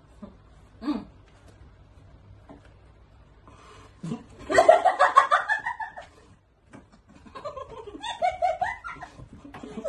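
A woman laughing out loud in quick pulses, a loud burst about four seconds in and more laughter near the end.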